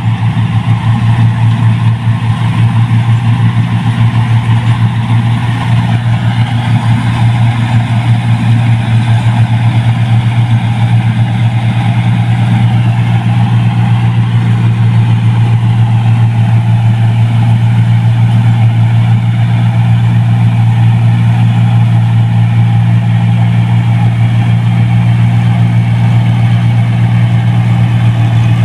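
New Holland 1545 combine harvester harvesting rice, its engine running at a loud, steady drone.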